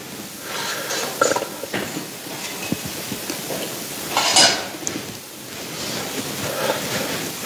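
Metal communion bread trays being lifted and handled, with rustling and a few light clinks, and a sharper rustle about four and a half seconds in.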